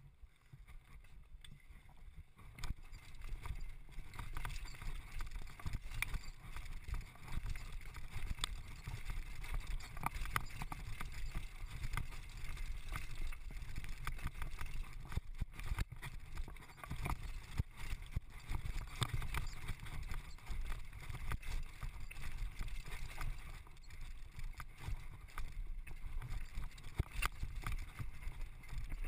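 Downhill mountain bike ridden fast over a rough, rocky dirt trail: a steady low rumble with a rapid, irregular clatter of knocks and rattles from the bike over the rough ground. It gets louder about three seconds in as the bike picks up speed.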